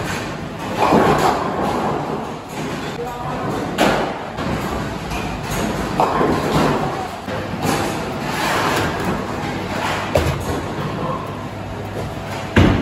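Bowling alley ambience: heavy balls thudding onto the lanes and into the pins every few seconds, the loudest thud near the end, over indistinct chatter in a large echoing hall.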